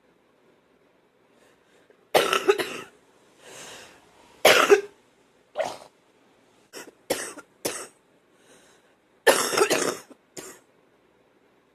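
A person coughing wet, phlegmy coughs in irregular fits after a couple of quiet seconds. A cluster of coughs comes first, then a drawn breath, a hard single cough, several short coughs and a last longer burst near the end.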